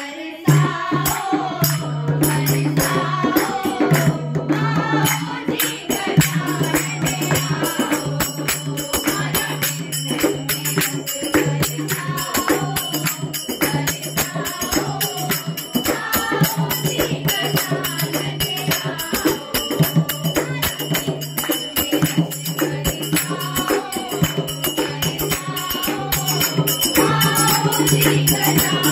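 Music: voices singing over dense, fast shaken percussion like a tambourine, with a steady low note underneath.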